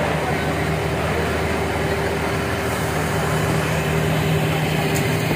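Fire truck's diesel engine running steadily, a low hum with a higher steady tone above it, growing a little stronger in the second half.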